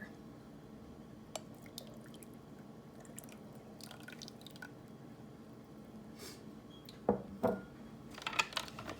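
Melted butter being poured into a food processor bowl, giving faint dripping and trickling with scattered small ticks. A couple of light knocks come about seven seconds in.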